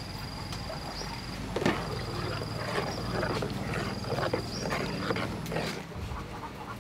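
Metal ladle knocking and scraping against the side of an aluminium pot while stirring a hot milky mixture, a string of short sharp clinks. Under it runs a steady low hum, and a thin high tone comes and goes in stretches of about a second and a half.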